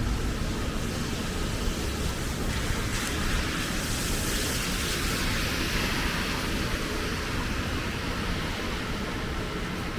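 Heavy rain falling steadily over a low rumble. From about three seconds in, a brighter hiss swells and fades again over a few seconds.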